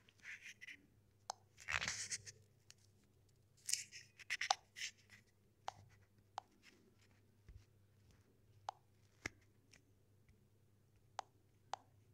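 Faint handling noise: scattered small clicks and a few brief rustles, the rustles mostly in the first five seconds.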